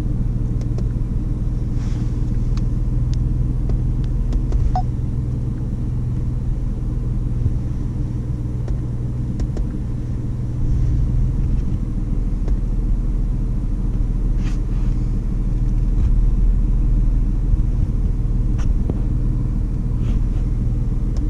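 A vehicle's engine running, heard inside the cabin as a steady low rumble that holds the same pitch throughout, with a few faint clicks.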